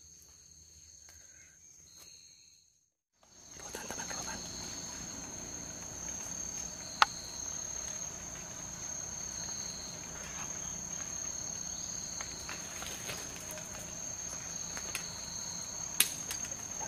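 A steady, high-pitched drone of tropical forest insects, coming in after a brief silence about three seconds in. A single sharp click sounds about seven seconds in, and a few more come near the end.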